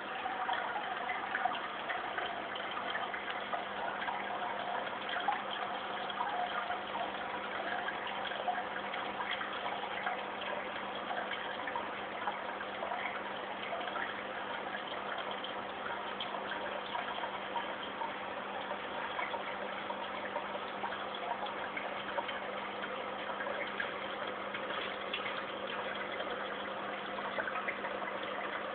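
Aquarium water circulating steadily, a continuous splashing and bubbling with fine crackles, over a faint steady hum from its pump.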